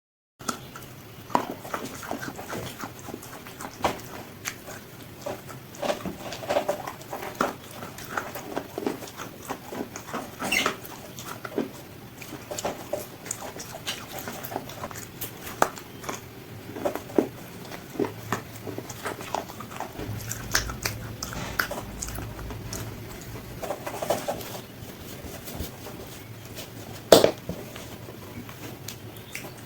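Biting and chewing crispy fried chicken close to the microphone: irregular crunches and wet mouth sounds, with one louder crunch near the end.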